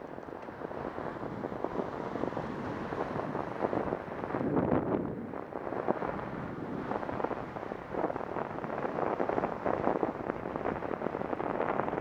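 Wind buffeting the microphone of a bicycle-mounted camera while riding, a gusty rumble that swells and eases unevenly.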